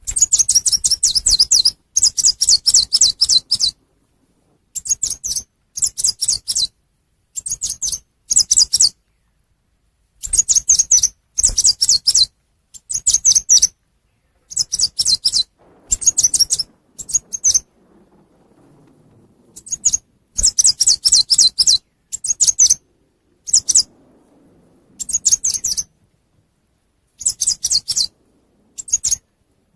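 Recorded calls of the chim sâu xanh, a small songbird, played as a bird-trapping lure call: bursts of rapid, high chirping, each from under a second to about two seconds long, repeat with short silent gaps between them.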